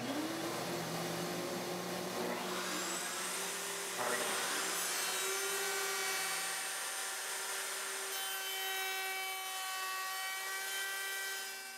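Table-mounted router spinning up, its pitch rising over the first second, then a flush trim bit cutting the panel's edge as the panel with its taped template is fed around the bearing. Steady motor and cutting noise that tapers off near the end.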